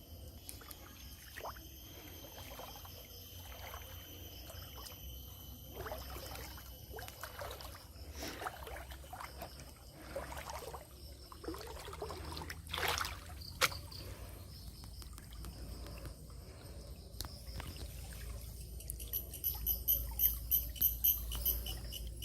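River water splashing and trickling in irregular bursts, with one louder splash about two-thirds of the way through. Near the end an insect's rapid, high pulsing call starts up.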